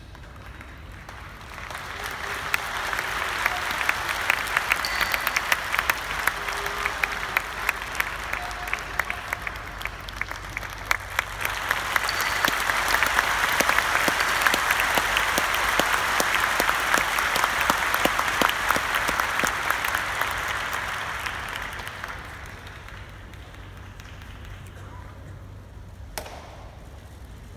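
Large arena audience applauding in two long swells, the first building about two seconds in and the second around twelve seconds, then dying away a little after twenty seconds as the sumo wrestlers go through the pre-bout ritual in the ring.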